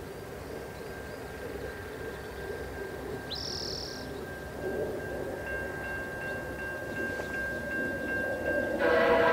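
Level-crossing warning bell ringing steadily at a distance, with a single short bird call about three seconds in. Near the end a locomotive horn of an approaching VIA Rail passenger train sounds loudly, a chord of several notes.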